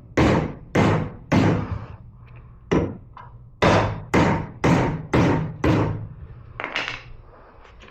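A three-pound hammer striking a tailgate hinge insert to drive it home, about ten sharp blows: three in quick succession, a single one, then a run of five at about two a second, with a lighter blow near the end.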